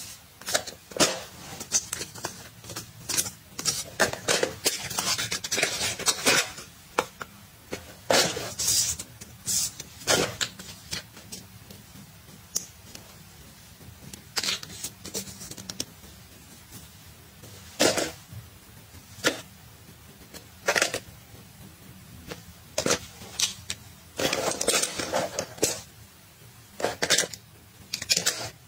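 Close handling of plastic and foil cosmetic sample sachets being sorted and packed into a fabric toiletry pouch: packets crinkling in short stretches, with irregular sharp taps and clicks as items are set down and pushed in.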